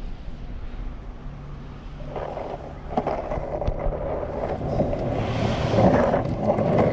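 Cruiser skateboard wheels rolling on a concrete sidewalk, starting about two seconds in and getting louder as the board picks up speed.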